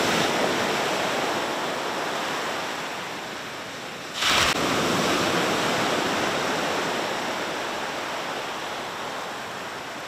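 Sea surf washing onto a sandy shore, a steady rush of breaking waves that slowly fades, with a brief louder rush about four seconds in.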